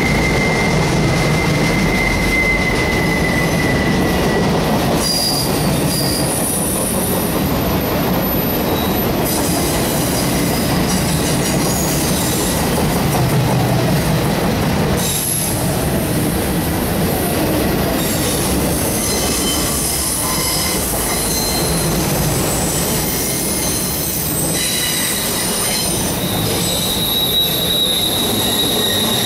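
Autorack freight cars rolling past: a steady rumble of steel wheels on the rails, with thin high-pitched wheel squeals that come and go.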